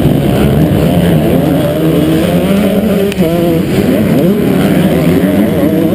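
Motocross dirt bike engine at race pace, its revs rising and falling through a corner, heard close up from a camera on the rider's helmet; the throttle comes off briefly about three seconds in.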